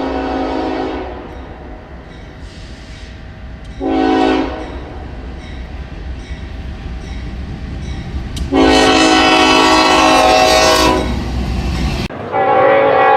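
Locomotive air horn sounding in separate blasts over the low rumble of a moving train: one blast ends about a second in, a short blast follows a few seconds later, and a long, loud blast comes after that. The rumble cuts off abruptly shortly before the end, and a different horn starts right after.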